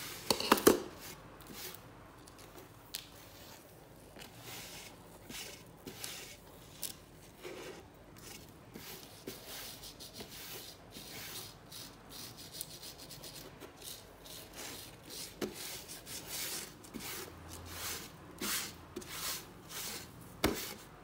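Fingers rubbing and pressing coloured sand onto a sticky sand-art card: irregular, scratchy rubbing strokes, some sharper and louder than others.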